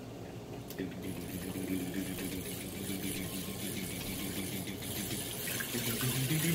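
Hand-cranked rotary egg beater whirring and rattling, its gears driving the beaters through egg wash in a bowl. The whir grows louder toward the end.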